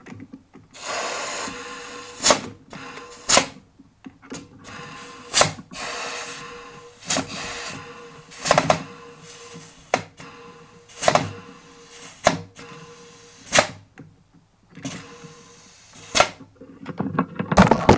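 Compressed air hissing into a screen-door closer cylinder rigged as an air ram, its rod driving out and knocking hard at the end of its stroke. About ten sharp clacks come at uneven intervals, with hissing in between.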